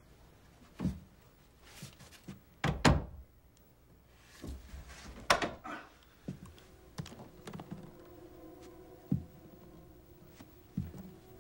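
Old panelled wooden door thudding as it is pushed and opened: a few heavy thunks, the loudest about three seconds in, then lighter knocks and clicks.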